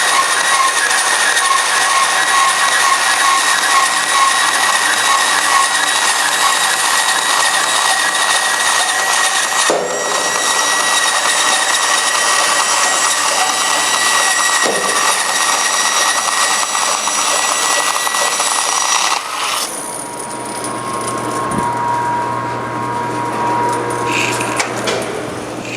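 Forrest Manufacturing 2054R vertical-blade traveling-table bandsaw cutting through a roll of thin thermoforming plastic sheet wound on a cardboard core: a loud, steady cutting noise with a high whine. The feed was a little too aggressive, which the operator says skewed the cut. About nineteen seconds in, the cutting noise drops off sharply, leaving a lower steady hum.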